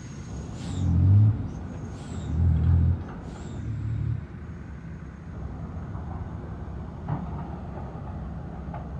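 Heavy diesel truck engine, swelling up and falling back three times in quick succession, then settling to a steady low rumble.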